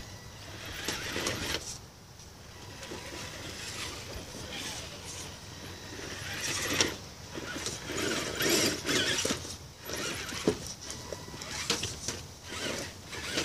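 Axial Wraith Spawn RC rock crawler's electric motor and geared drivetrain whirring in on-and-off bursts as it crawls over logs and rocks, with a few sharp knocks.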